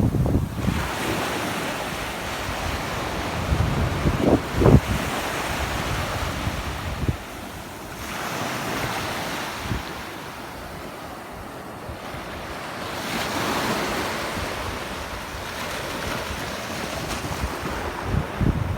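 Sea waves washing in and breaking, the surf swelling and fading several times, with wind buffeting the microphone in low gusts.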